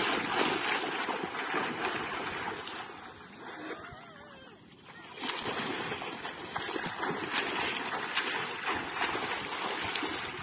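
Splashing of a swimmer's arms and kicking legs in shallow seawater during backstroke, dropping to a lull about halfway through before the splashing picks up again.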